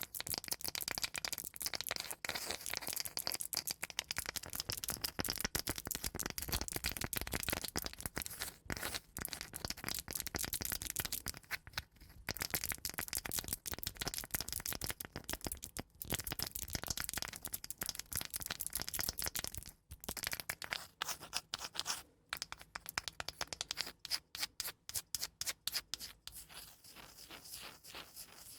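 Fast scratching and tapping on cork and wooden surfaces, close to the microphone, with brief pauses and a run of quick separate taps, about six a second, near the end.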